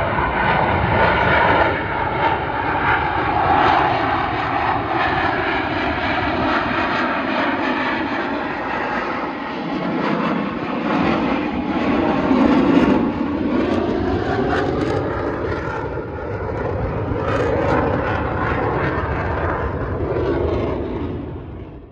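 Propeller airplane engine running, a continuous drone whose pitch slowly shifts up and down, fading out at the end.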